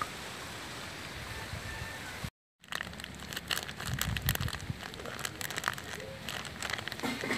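A steady background hiss, then a brief dropout. After it, a plastic packet crinkles and crackles in the hand as dry powder is poured from it into a plastic bowl.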